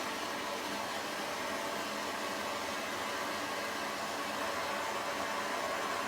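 Gas torch flame hissing steadily as it heats a copper pipe fitting, bringing the joint up to temperature before the solder is fed in.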